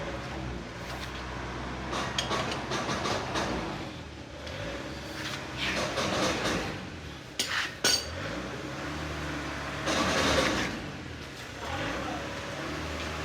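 Metal tools and engine parts clinking and clattering during engine repair work, over a steady low hum.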